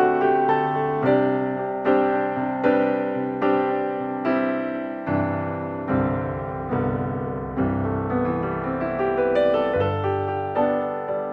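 Background piano music: a calm melody of evenly paced notes, each fading after it is struck, over low bass notes.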